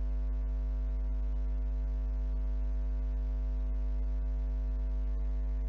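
Steady, low electrical mains hum with no change and no other sound.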